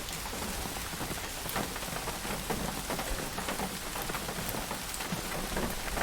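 Steady rain falling on a hard surface, with a dense patter of individual drops striking close by.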